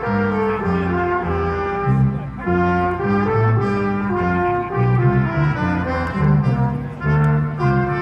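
A live band plays, with brass instruments carrying a melody of held notes over a moving bass line.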